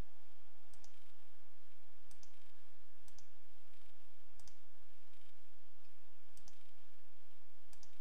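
Computer mouse clicking, about half a dozen single clicks at irregular intervals a second or so apart, some heard as a quick double tick of press and release, over a steady low hum.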